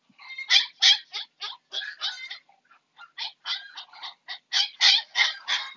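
Husky puppy squealing and yelping in a fast series of short, high-pitched cries, about three a second, with a short lull midway. The cries come just after a vaccine injection under the skin while the spot is rubbed.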